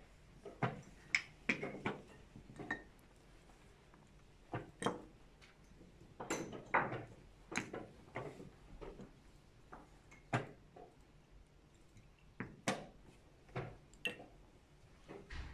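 Blitz chess being played: chess pieces set down on the boards and chess clock buttons pressed, a string of irregular sharp clicks and knocks, some in quick pairs.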